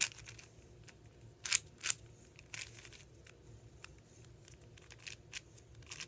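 Stickerless 4x4 speed cube being turned by hand: irregular plastic clicks and clacks of its layers, the two loudest about a second and a half and two seconds in.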